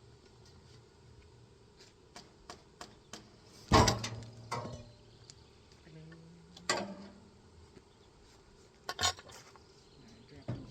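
Scattered clanks and knocks of work at a sawmill, with the saw stopped. A few light ticks come first, then a loud clank with a short ring about four seconds in, followed by several more knocks, two of them close together near the end.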